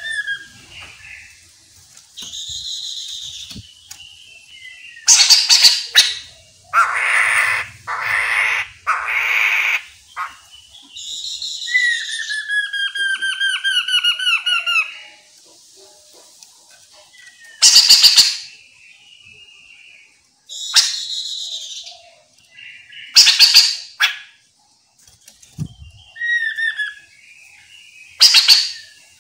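Chestnut-capped laughingthrush singing a loud, varied song: harsh rasping squawks several times, a stretch of thick chattering notes, and a run of quick repeated down-slurred whistles.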